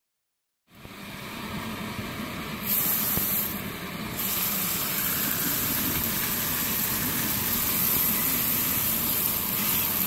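After a brief silence, a steak sizzles in a hot frying pan on a gas canister camping stove as it is laid into the pan. The hiss jumps louder about two and a half seconds in and then stays steady.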